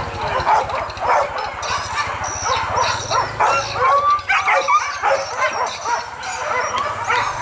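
A pack of hunting dogs yelping, barking and whining, many voices overlapping in quick, high calls, as the leashed dogs strain during a wild boar hunt.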